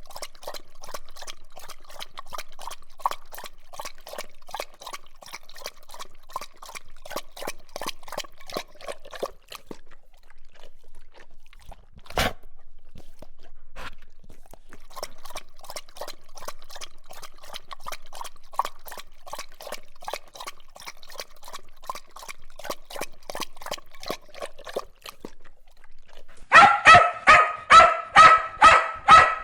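A dog drinking water, lapping in a rapid, even rhythm, with a pause and a single sharp click partway through. Near the end a dog barks repeatedly, about three barks a second, louder than the lapping.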